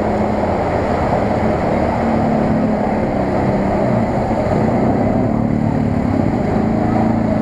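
Off-road vehicle engines running steadily as they drive through a muddy water pit, with a steadier engine tone coming in near the end.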